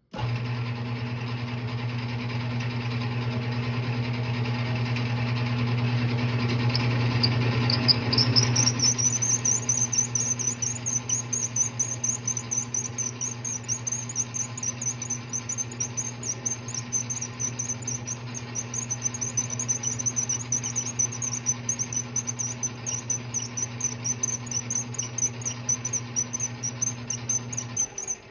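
Metal lathe running with a knurling tool pressed into the spinning nut blank. Its motor hum is steady throughout. About eight seconds in, a high-pitched, fast-wavering squeal rises and then holds as the knurl wheels cut, and everything stops just before the end.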